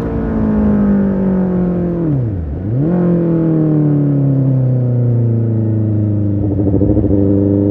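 2007 Honda CB600F Hornet's inline-four engine running through its exhaust, the revs slowly falling. About two and a half seconds in the note drops sharply and comes straight back up, then it settles into a steady low running note.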